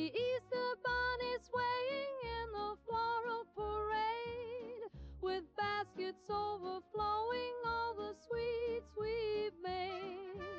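Background music: a cheerful children's-style song with a melody carried by a wavering, sung-sounding line over a steady bass beat.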